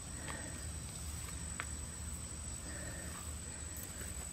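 Steady high-pitched trill of crickets, over a low steady rumble of outdoor background noise, with one light click about one and a half seconds in.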